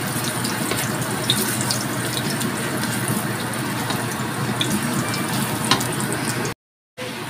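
Chopped garlic sizzling in hot oil in a stainless steel wok, with light ticks from a wooden spatula stirring it. The sound breaks off for a moment near the end.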